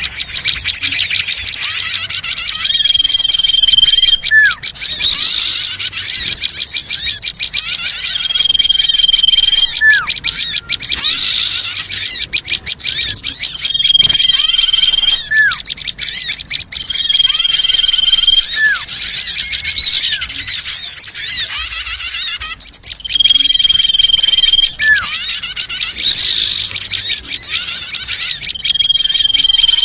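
A bird-lure recording of a busy chorus of many small birds chirping continuously. A steady high whistle held for about a second and a half recurs every five or six seconds, along with short down-slurred notes.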